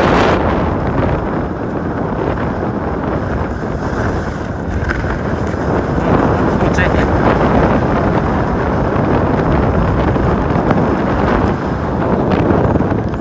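Wind rushing over a handheld phone's microphone during a downhill ski run, mixed with skis scraping on hard snow.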